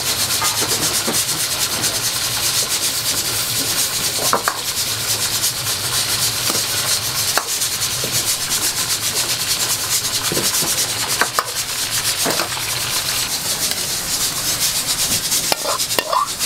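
Food frying in a wok: a steady, loud sizzling hiss with scraping as it is stirred, over a steady low hum, with a few sharp knocks.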